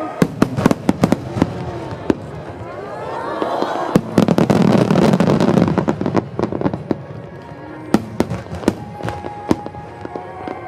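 Fireworks exploding: a run of sharp cracks and bangs, then a big burst about four seconds in followed by a rumble lasting a couple of seconds, and more cracks near eight seconds. Music plays underneath.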